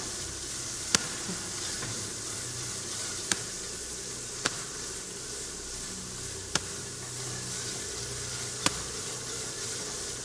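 Steady hiss over a faint low hum, broken by five sharp clicks spaced one to two seconds apart.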